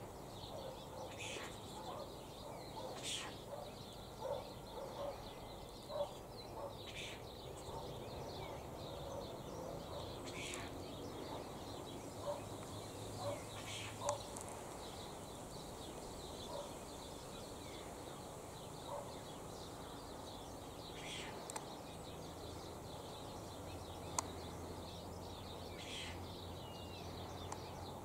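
Quiet outdoor ambience with faint, brief bird chirps every few seconds over a low background hiss.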